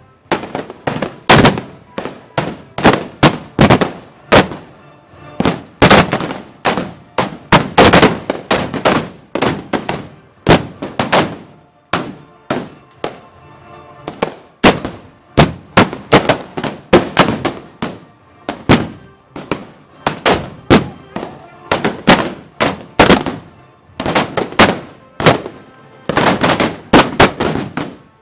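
Black-powder arquebuses firing blanks in rapid, irregular volleys, many shots overlapping with echoes and only brief lulls between clusters.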